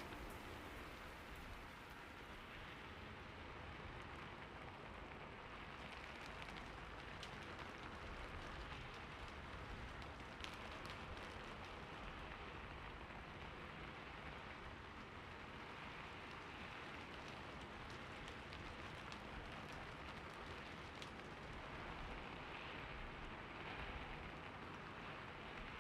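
Steady monsoon rain falling, a soft even hiss with scattered drop ticks.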